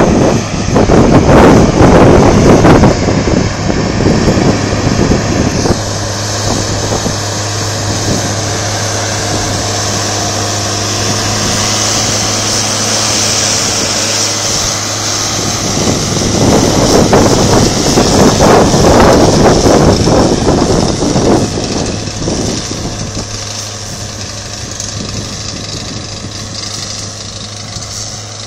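Tractor engine running steadily under load while pulling a seedbed cultivator, a constant low hum. A louder rushing noise comes over it for the first few seconds and again around the middle, then the sound fades a little toward the end.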